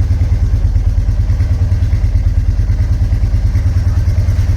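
Royal Enfield Meteor 350's single-cylinder engine idling steadily with an even, rapid beat.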